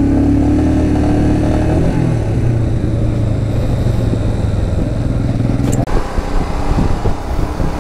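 Royal Enfield Himalayan's single-cylinder engine running as the bike is ridden, with road and wind rush. Its note drops about two seconds in. A click comes a couple of seconds before the end, and after it the engine sound turns rougher and uneven.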